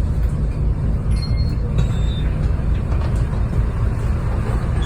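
Volvo B7RLE bus's diesel engine running, heard from inside the bus as a steady low rumble.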